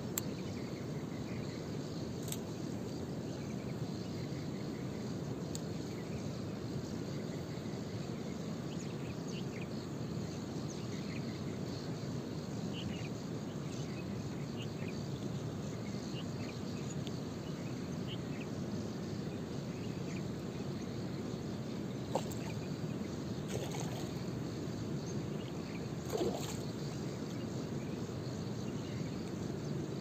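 Steady low outdoor rumble with faint, scattered insect chirps over it. A couple of short knocks come about two-thirds of the way through and again near the end.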